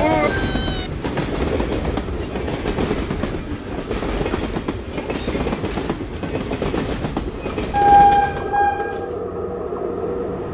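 Train running noise, steady along the track, with a two-part horn blast about eight seconds in.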